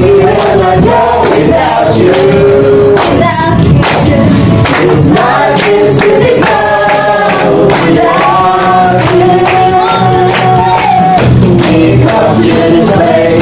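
A group singing a worship song together over a karaoke backing track, with hands clapping along to the beat.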